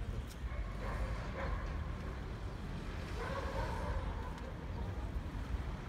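Town-street ambience: a steady low rumble of traffic, with faint voices of passers-by about a second in and again between three and four seconds in.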